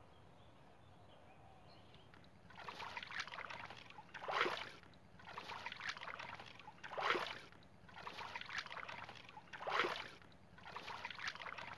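Hands sloshing and splashing in shallow muddy pond water while groping for an eel in a mud hole. The sloshing starts about two and a half seconds in, with three louder splashes roughly every three seconds.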